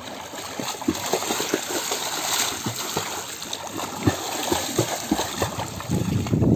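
Floodwater splashing and trickling, with a run of small, irregular splashes.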